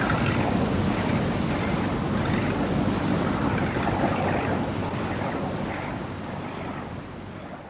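Sea ambience of waves washing and wind blowing over open water. It fades out gradually over the last couple of seconds.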